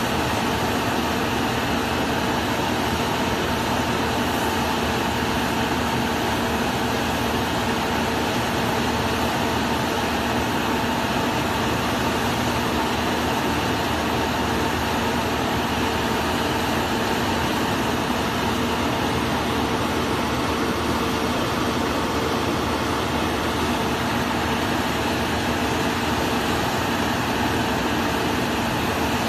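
Self-loading concrete mixer truck's diesel engine running steadily to turn the drum as it discharges concrete down the chute, a constant hum with no change in speed.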